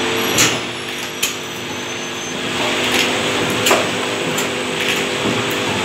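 Automatic juice filling machine running: a steady motor hum and whir, with sharp mechanical clacks from its moving parts at irregular intervals, roughly one a second.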